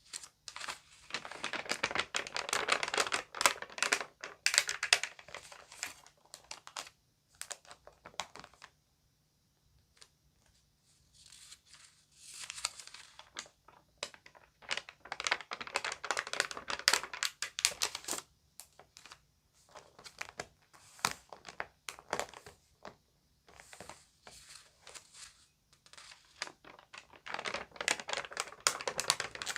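Glossy magazine pages being turned and crinkled by hand: bursts of crackling and rustling a few seconds long, with short quiet pauses between them.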